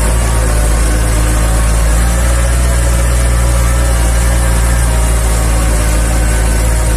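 Tractor engine running steadily at an even low pitch, heard close up from on the tractor, over a constant rush of its tyres churning through shallow river water.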